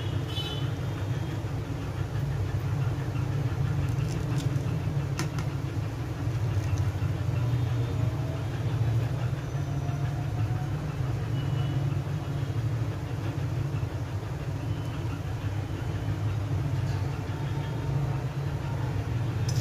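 Steady low hum that runs without change, with a few faint sharp clicks about four and five seconds in from a knife slitting a soft vegetable.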